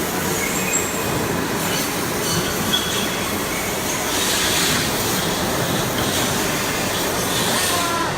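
Steady din of running machinery with a few brief, thin, high-pitched metallic squeaks.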